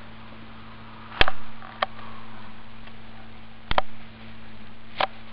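Several sharp knocks or taps with a short echo: a loud one about a second in, a faint one soon after, a quick double knock past the middle and a small double near the end, over a low steady electrical hum.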